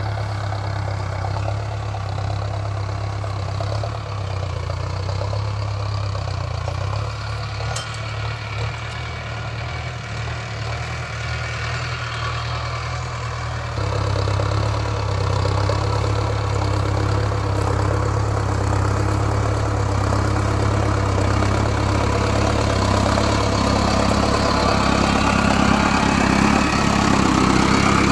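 Mahindra Arjun Novo 605 DI-i tractor's diesel engine running steadily while it pulls a seed drill. About halfway through the sound jumps louder and fuller as the tractor is heard much closer, and it grows a little louder again toward the end.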